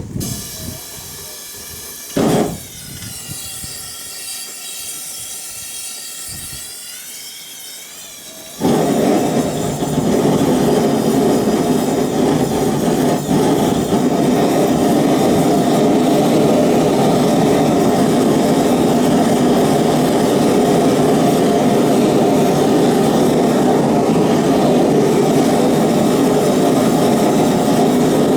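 Single-burner propane gas forge: a faint whistling hiss, then about eight and a half seconds in the burner lights and runs with a loud, steady rush of flame.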